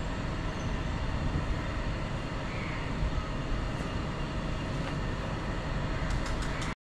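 Steady urban street ambience: a constant rumbling hum, with no distinct events, that cuts off suddenly near the end.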